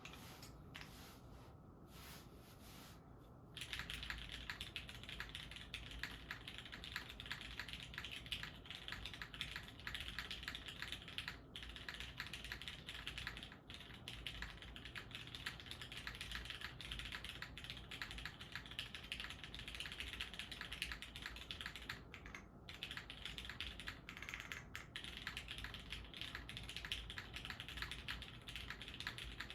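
Typing on a custom Time 60 mechanical keyboard with Retool Brown switches lubed with 205g0, a carbon-fibre half plate, O-ring mount and GMK keycaps. A few separate sounds in the first three seconds, then continuous fast typing from about three and a half seconds in.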